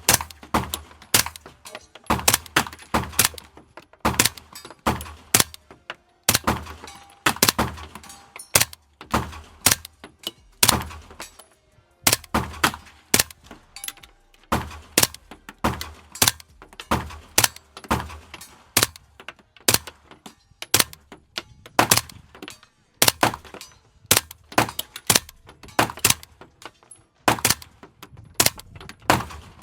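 Suppressed 9mm firearm firing a long string of shots, about two to three a second and unevenly spaced, with brief pauses about six and fourteen seconds in. After the first two rounds it is firing 147-grain subsonic ammunition.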